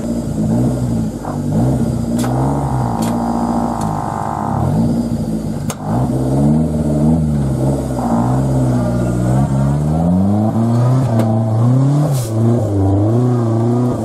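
Modified off-road 4x4's engine revving up and down again and again, working hard on a steep dirt climb. A steady higher whine runs for about two seconds starting about two seconds in, and a few sharp knocks come through.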